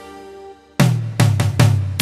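Music: a held note fades into a short pause, then drum kit hits come in about a second in and lead back into the full band.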